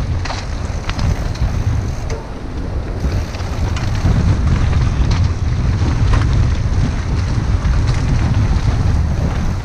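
Wind buffeting the microphone of a head-mounted camera on a mountain bike descending a dirt forest trail at speed, a steady low rumble, with tyre noise on the dirt and scattered short knocks and rattles from the bike over roots and rocks.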